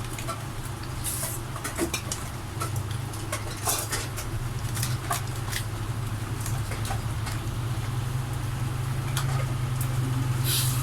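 Pitbull puppies making scattered small clicks, taps and scuffles over a steady low hum.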